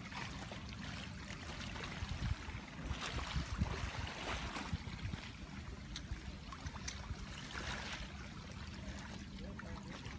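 Small lake waves lapping and splashing at the shore, with a steady low wind rumble on the microphone.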